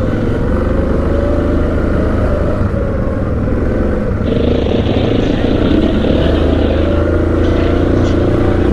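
ATV engines running steadily at low speed, with a higher hiss joining for about three seconds midway.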